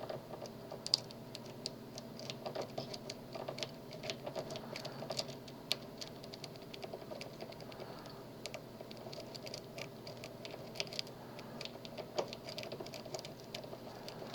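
Lock pick raking the pins of a Master Lock M1XDBLF padlock held under a tension tool: a fast, irregular scatter of small metallic clicks and scrapes.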